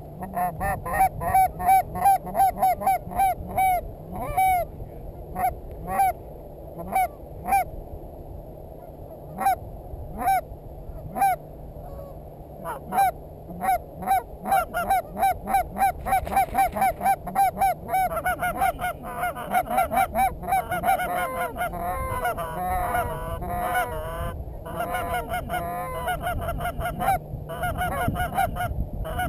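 Geese honking: a run of short, evenly spaced honks at first, sparser in the middle, then many overlapping honks and lower sliding calls in the last third as more birds call at once.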